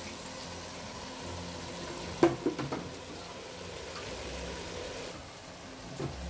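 Cut green beans and garlic sizzling in oil in a stainless steel pot as they are stirred, with a quick cluster of sharp knocks a little past two seconds in and one more near the end.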